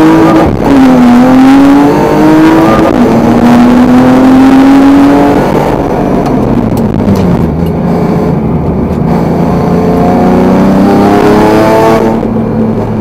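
Car engine, heard from inside the cabin, accelerating hard from a standstill: it revs up, shifts gear about half a second in, and climbs again until about five seconds in. Then the revs fall away as the car slows for a bend, hold lower, and build once more before easing off near the end.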